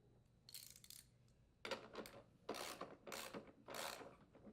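Ratchet wrench with a 9/16-inch socket clicking in a run of short strokes, about five, as the rear wheel's mounting nut is tightened.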